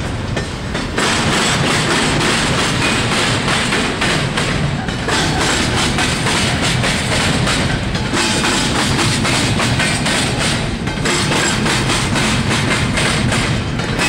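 Intermodal train cars rolling past, their wheels knocking and clattering over rail joints and the junction trackwork in a rapid, continuous run of thuds, easing off briefly every few seconds.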